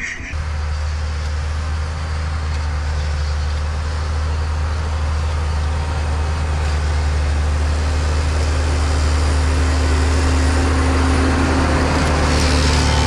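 Tractor engine running steadily, heard from inside the cab: a strong low hum with a constant higher tone and a wash of mechanical noise, growing a little louder over the seconds.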